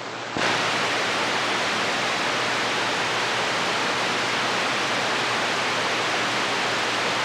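CB radio receiver on channel 6 giving out a steady rushing static hiss between transmissions, with no station on the air. The hiss jumps up about a third of a second in as the last signal drops off, then holds even.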